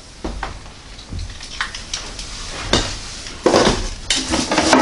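Unboxing handling noise: plastic wrapping crinkling and rustling while packed electric-skillet parts are pulled out of the box, with several knocks and clatters of the parts. The loudest rustling comes a little past halfway and again near the end.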